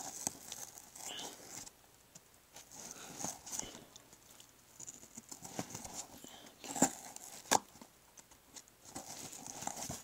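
Knife cutting and scraping through thick printed packing tape on a cardboard box: on-and-off scratching and tearing, with two sharp clicks under a second apart about seven seconds in.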